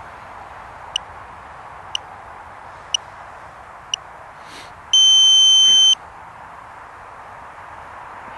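Radio transmitter's flight timer counting down: short high beeps once a second, then one loud, long beep about a second long, marking that the set flight time has run out.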